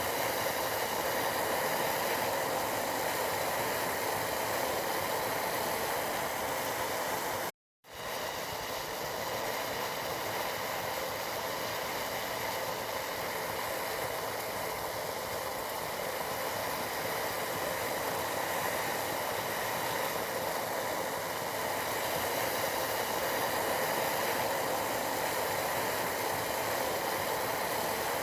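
Tea boiling in a pot: a steady bubbling hiss. It cuts out to silence for a split second about eight seconds in, then carries on unchanged.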